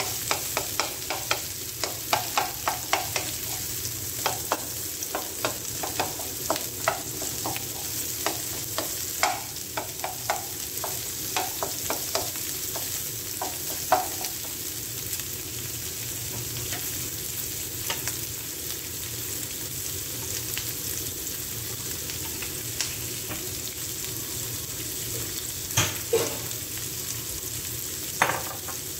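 Chopped onion and garlic sizzling in a nonstick wok while being stirred with a wooden spatula. Quick knocks and scrapes of the spatula against the pan for the first half, then mostly steady sizzling with a couple of louder knocks near the end.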